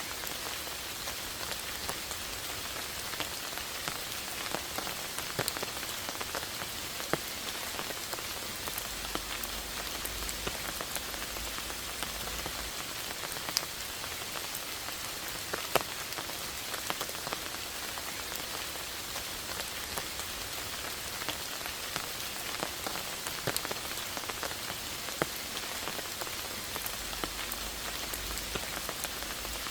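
Steady rain falling, with many separate drops landing as sharp clicks at irregular moments over a constant hiss.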